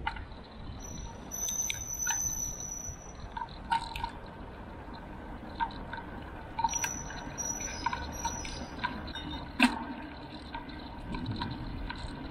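Riding sounds picked up by an action camera on a bicycle mount: a low rumble with scattered clicks and knocks from the bike and mount, the sharpest about ten seconds in. Twice a thin, high, steady squeal-like tone comes and goes, once early and again in the second half.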